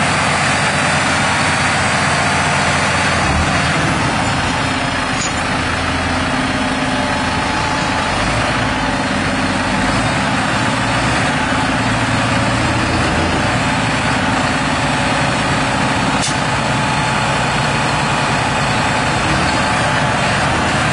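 Diesel engines of a Massey Ferguson 7618 and a Claas Arion 540 tractor running steadily, one of them straight-piped, with the engine note shifting a little over time.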